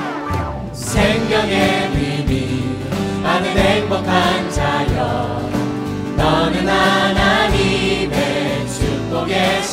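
Gospel song as background music: a choir singing over a band accompaniment.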